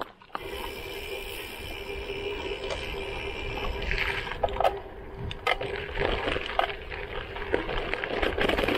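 Tyres of a Lauf Anywhere gravel bike rolling down a gravel road, a steady rumbling hiss picked up by a camera mounted on the moving bike, with wind on the microphone and a few sharp clicks from the rough surface.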